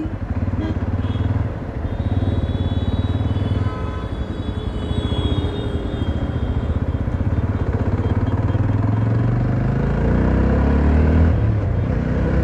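Jawa 42 single-cylinder motorcycle engine pulling away and accelerating, heard from the rider's seat. The engine note rises in pitch in the second half, breaks briefly at a gear change, and then climbs again.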